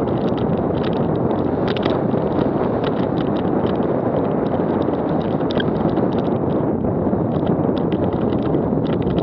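Wind rushing over a helmet camera's microphone as a downhill mountain bike rolls fast over a rocky dirt trail, with frequent irregular clicks and rattles from the bike and loose stones.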